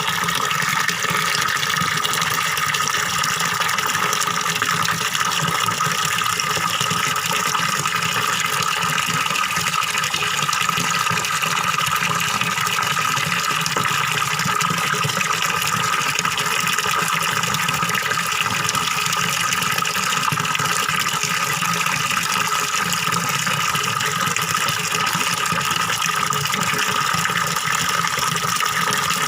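Small waterfall pouring into a fish pond, a steady gurgling splash of falling water.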